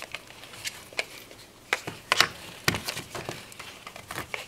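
A cat's claws catching and scraping on a woven floor mat: irregular short crackling clicks, loudest a little past two seconds in.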